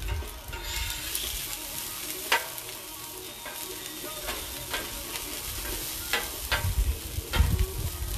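Onions sizzling steadily on a hot Blackstone flat-top griddle, with about five short, sharp clicks and scrapes of a spatula turning them on the steel plate.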